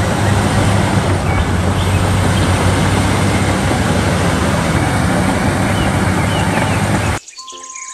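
Large crawler bulldozer's diesel engine running hard with a steady low drone and dense clatter as the blade pushes a pile of soil. It cuts off suddenly near the end, where a short steady beep follows.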